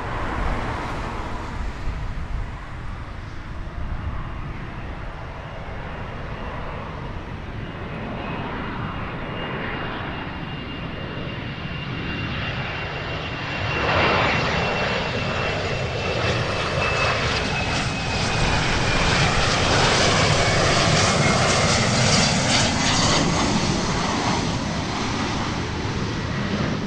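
Embraer Legacy 600 business jet on final approach with gear down, its twin Rolls-Royce AE 3007 turbofans giving a steady rumble with a high whine. The whine slowly falls in pitch as the jet draws nearer, and the sound grows louder through the second half.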